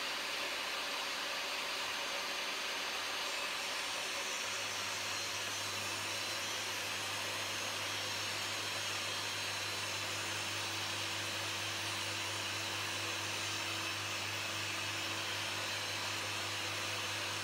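Table saw running steadily while a strip of timber is ripped along the fence. A low hum joins about four and a half seconds in, as the blade enters the wood.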